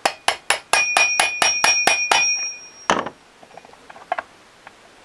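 Hammer tapping a spark plug wrench held against a Jonsered chainsaw's clutch to seat it tight: about a dozen quick, light metal-on-metal taps with a ringing tone, about five a second, then one last hit near three seconds, followed by a few faint clicks.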